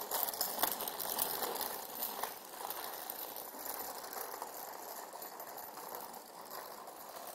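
Small plastic wheels of a toddler's three-wheeled kick scooter rolling and rattling over asphalt, with a few sharp clicks in the first couple of seconds, growing fainter as it moves away.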